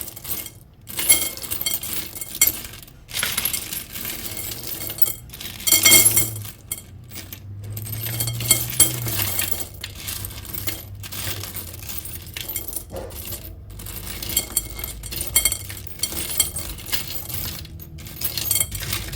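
Small metal charms clinking and jingling together as a handful is sifted and poured into a bowl, a dense stream of little clicks with a louder rush about six seconds in.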